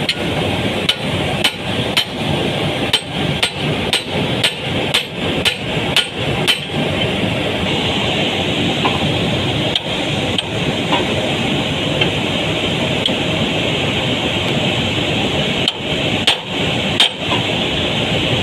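Metal hammer blows on a seized bolt in a roto packer's impeller, struck to drive it out: a quick run of about two to three strikes a second for the first six seconds, then a few scattered strikes. A steady mechanical noise runs underneath.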